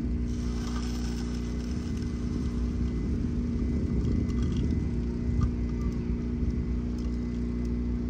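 Steady low hum of an idling engine or motor, unchanging throughout.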